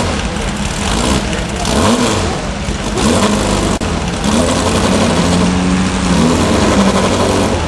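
Rail buggy engine revving up and down again and again while its tyres dig through deep mud.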